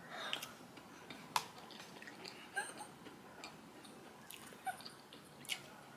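Two people chewing frosted cupcakes: faint, scattered wet mouth clicks and small soft noises.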